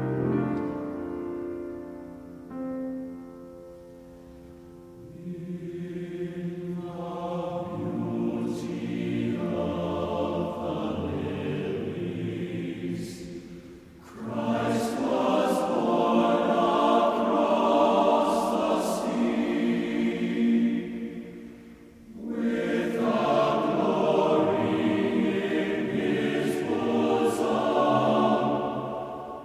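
Choral music: a choir singing long held chords in swelling phrases, with two brief breaks between them.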